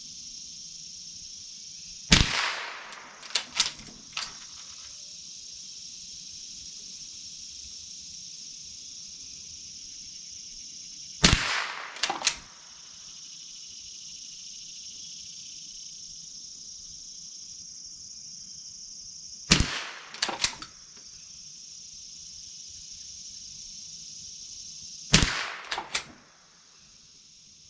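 Four shots from a Remington Model 12 .22 rimfire pump-action rifle, spaced several seconds apart. Each shot is followed within about a second by a few sharp clicks as the slide is worked to eject the empty case and chamber the next round.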